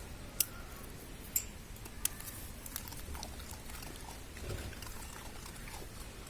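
Puppies eating, snuffling and grunting over their food amid many small ticks, with three sharp clicks in the first two seconds.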